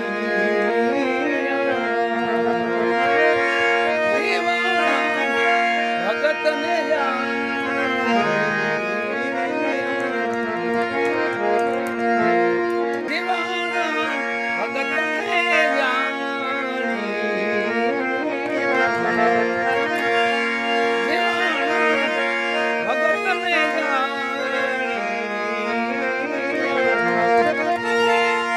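Harmonium playing a wandering melody over steady held drone notes: an instrumental passage of a Gujarati devotional bhajan.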